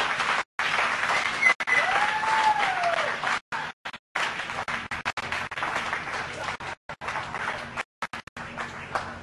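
Crowd applauding and cheering, with one voice calling out in a rising-then-falling cheer about two seconds in. The sound drops out completely for split seconds several times.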